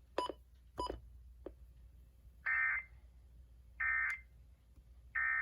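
Two short clicks, then three short, evenly spaced bursts of digital data tone about 1.3 seconds apart. This is the SAME end-of-message code on a NOAA Weather Radio broadcast, marking the end of the tornado warning.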